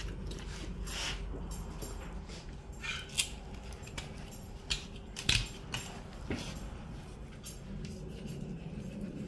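Boning knife working around the bone of a lamb leg: faint scraping and a handful of sharp clicks as the blade meets the bone, over a low steady hum.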